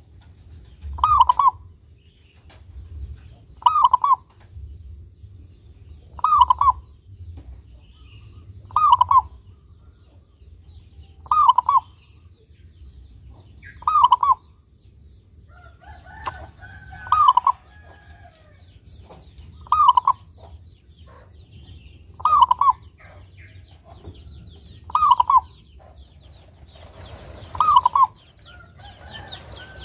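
Zebra dove (perkutut) singing: a short burst of cooing notes repeated evenly about every two and a half seconds, eleven times, with a few faint chirps of another bird in between.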